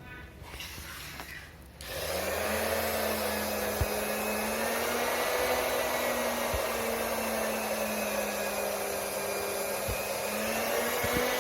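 Small electric fan switched on about two seconds in, its motor spinning up to a steady hum under a rushing of air, with a few faint clicks.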